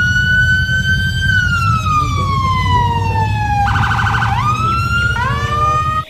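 Electronic police siren sounding. It holds one long tone that slowly falls in pitch, breaks into a quick warble a little past halfway, then rises again. A low rumble runs underneath.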